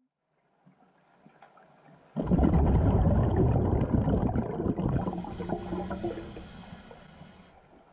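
A sudden loud, deep rumbling sound effect with a watery, gurgling character, starting about two seconds in and fading away over the next five seconds.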